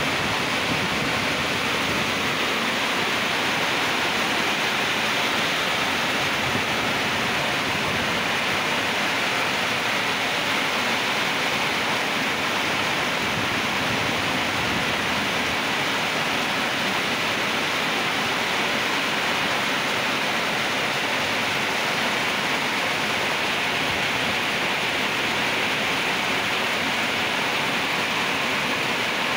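Heavy rain falling steadily in a dense, even hiss that does not let up.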